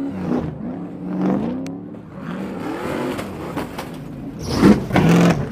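Stadium Super Truck engines revving, their pitch sweeping up and down as the trucks jump and land close by. About four and a half seconds in comes the loudest part, a harsh crashing burst as trucks tumble over in a wreck.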